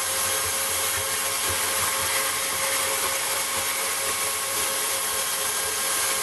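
VEVOR 1100-watt variable-speed portable band saw running steadily, its blade cutting through a round metal tube.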